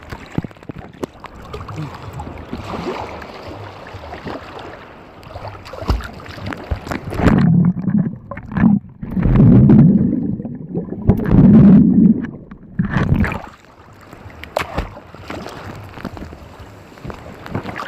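Sea water sloshing and gurgling close to the microphone, with a run of loud, low rushing surges about seven to thirteen seconds in.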